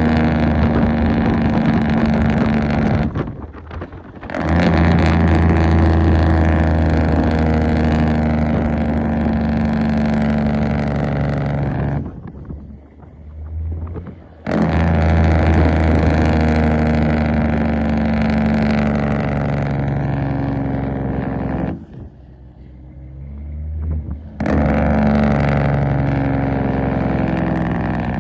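Semi truck's diesel engine with its Jake brake (engine compression brake) on, in a loud, steady rattle. It runs in four long stretches, cutting out briefly about 3 s, 12 s and 22 s in.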